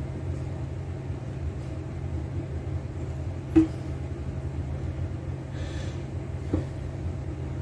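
A steady low machine hum, with a single sharp click about three and a half seconds in and a softer knock near the end.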